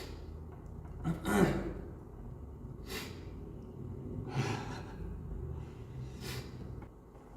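A man's audible breathing: a sharp, gasping intake of breath about a second in, then a few shorter breaths or sniffs.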